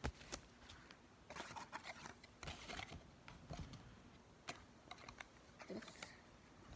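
Faint handling noises as hands tidy away cards and stickers over a fleece blanket: scattered light clicks and short rustles, with a sharp knock at the very start.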